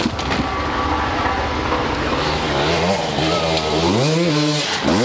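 Hard enduro dirt bike engine running steadily, then revved up and down in several short blips from about halfway through, with a quick rev near the end.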